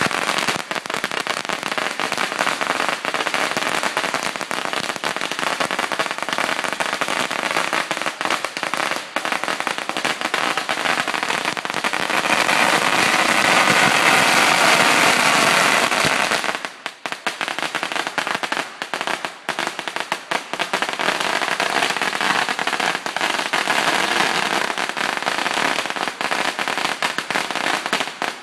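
Ground firework going off with a continuous, dense crackle of rapid pops, easing briefly about seventeen seconds in before crackling on.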